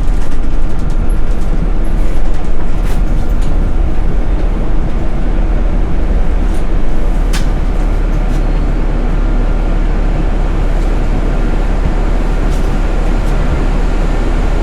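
Interior of a moving city bus: steady engine and road rumble, with a few short rattles or clicks.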